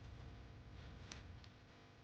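Near silence: low steady room hum, with two or three faint light ticks about a second in.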